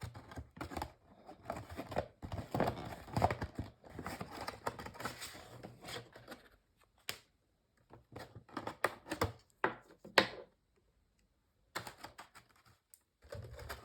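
Packaging and small parts being handled: irregular clicks and taps with plastic and paper rustling, stopping briefly near the end.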